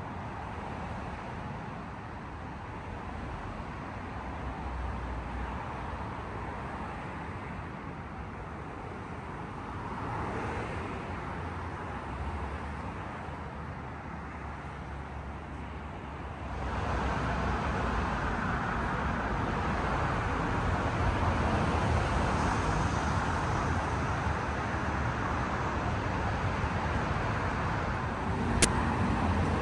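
Steady road traffic noise of cars passing, growing louder a little over halfway through, with a single sharp click near the end.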